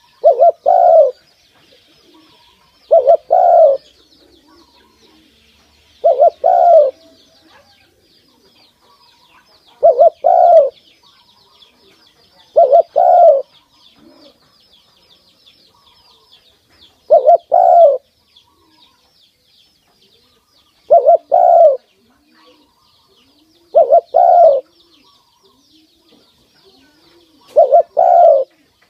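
Spotted dove cooing at close range: a short two-part coo repeated about every three to four seconds, nine times.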